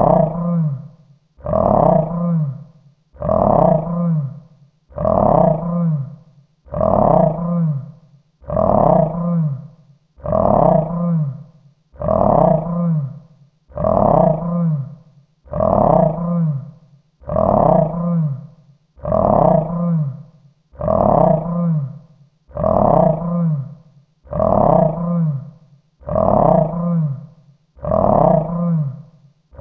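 Mythical beast growl sound effect: the same deep growl repeated over and over, one about every second and three-quarters, each lasting a little over a second.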